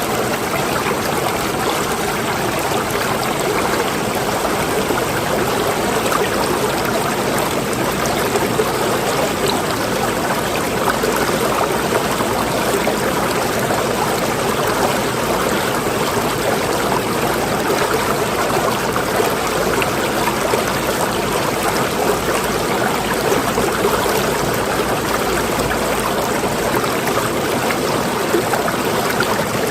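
Running water flowing steadily, a continuous even rush with fine trickling and splashing detail and no pauses.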